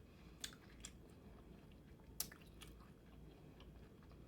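Faint chewing of blue crab meat, with a few small sharp clicks and smacks; the loudest is about two seconds in.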